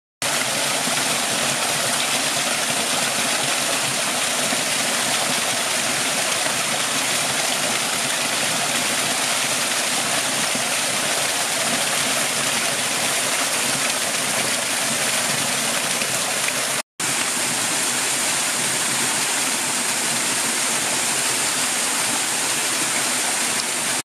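Water rushing steadily down a small cascade between boulders, a continuous even splash and hiss of falling water. It cuts out for a split second about seventeen seconds in.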